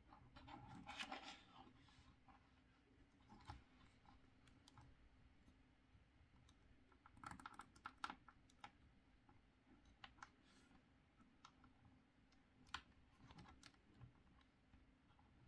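Faint plastic clicks and rubbing as a Star Wars Black Series Snowtrooper action figure is handled and posed, coming in a few short clusters.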